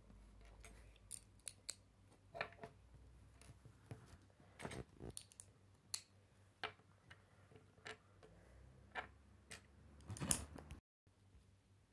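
Lego bricks being handled and snapped together: faint, irregular plastic clicks and taps, a few slightly louder than the rest.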